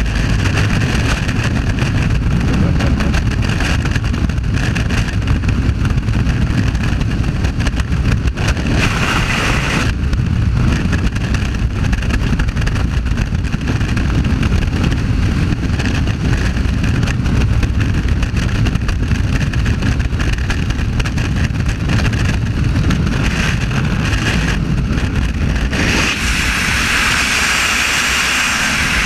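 Freefall wind rushing over a helmet camera's microphone: a loud, steady rush of air, heaviest in the low end. Near the end the low rumble thins and a higher hiss takes over as the parachute deploys and the fall slows.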